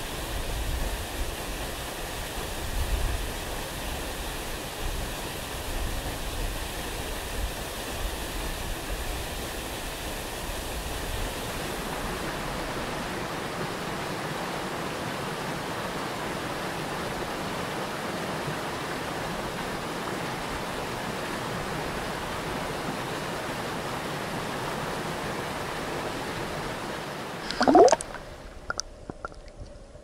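A mountain waterfall and rapids rushing steadily. Near the end comes a brief loud splash, after which the water sound turns quieter and muffled, as from a camera under water.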